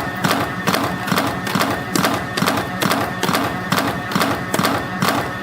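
CNC spring coiling machine running in production, forming and cutting off 2.0 mm wire compression springs: a fast, even train of metallic clacks, one cut-off cycle after another.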